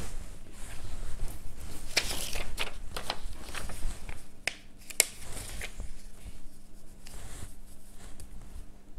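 Lycra fabric and a paper pattern piece being handled on a cutting mat: rustling and crinkling, with a few sharp clicks and taps about halfway through.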